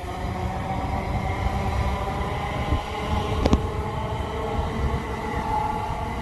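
Electric train running through the station: a steady low rumble of wheels on rail, overlaid with a steady hum of several tones, and one sharp click about three and a half seconds in.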